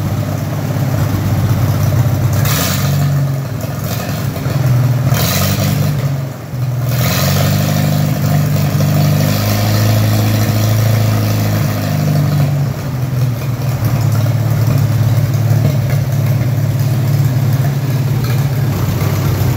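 A 1944 Farmall A's four-cylinder engine running steadily, its speed rising and falling a few times in the first seven seconds and once more around the middle.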